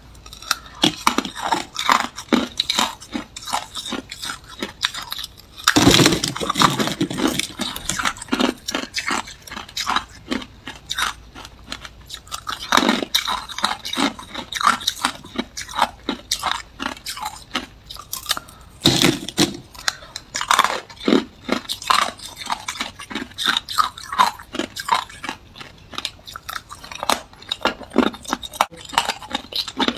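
Hard clear ice balls being bitten and chewed: a steady run of sharp crunches and cracks as the ice breaks between the teeth, with the biggest bites about six, thirteen and nineteen seconds in.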